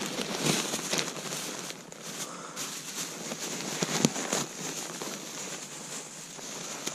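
Irregular rustling and crunching with a few sharp clicks, the loudest about four seconds in.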